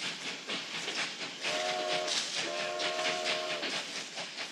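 Train horn sounding a chord of several notes: a short blast about a second and a half in, then a longer blast, over steady background noise.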